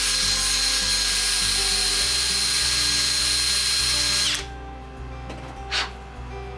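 Cordless drill running steadily at speed, spinning an inside pipe reamer bit inside a copper fitting to clean it out before soldering. It stops about four seconds in.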